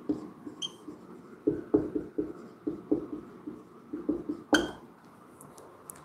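Marker pen writing on a whiteboard: a run of short, uneven strokes, then one sharp click about four and a half seconds in.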